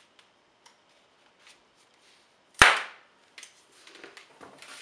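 A small twisted bubble of a red latex modelling balloon popped with scissors: one sharp, loud pop about two and a half seconds in, with a few faint clicks of handling around it.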